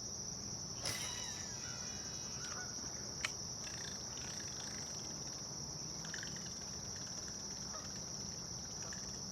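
A steady high-pitched insect drone, with a few faint bird chirps and two sharp clicks, about a second in and about three seconds in.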